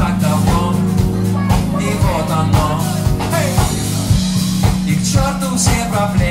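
Live band playing: a man singing into a microphone over drum kit, bass and electric guitar, with a steady beat.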